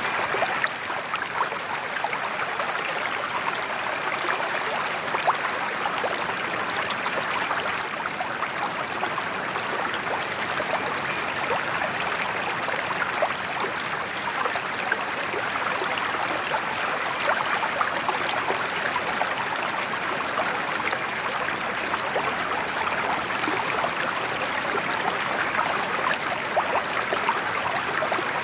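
Water pouring from a sheet-waterfall spout into a koi pond, a steady splashing rush.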